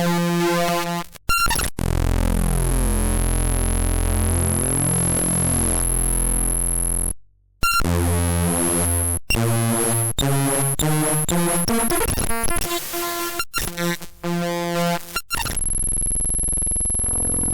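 Computer icon files played back as raw audio data: harsh, buzzy digital tones and noise that switch abruptly from one block to the next, with a steady high whine over much of it. It drops out briefly about seven seconds in.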